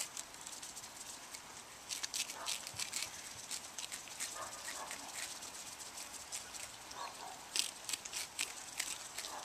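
Mute swan grazing at close range: an irregular run of short tearing and clicking sounds as its bill crops and pulls at grass.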